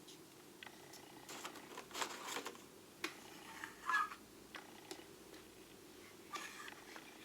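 Small metal lathe tool bits clicking and clinking as they are handled and taken out of their set: a rattle of clicks about a second and a half in, a sharp clink at three seconds, a brief ringing clink near four seconds that is the loudest, and another short rattle near the end. A low steady hum runs underneath.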